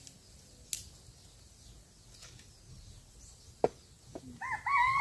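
A sharp knock and a lighter one as a steel wok is set down on a clay cooking pot. Near the end a rooster starts crowing.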